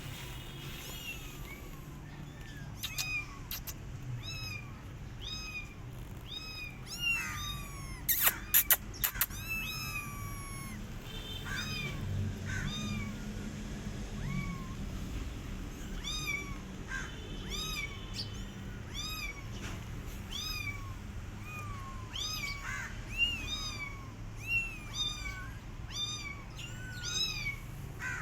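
Young kittens meowing repeatedly in high, thin cries, many short calls one after another, at times overlapping. A few sharp clicks or knocks come in a cluster about a third of the way in.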